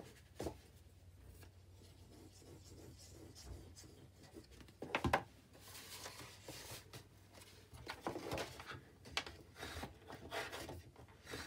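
Cardstock being folded and pressed by hand against a wooden table: faint rubbing and handling of the card, with one sharper noise about five seconds in, then a run of light, irregular taps and rubs.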